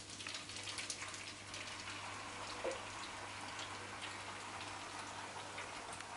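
Spaghetti with grated bottarga sizzling in olive oil in a frying pan, a steady crackling hiss with scattered small pops, as spoonfuls of pasta water hit the hot oil. A low steady hum runs underneath.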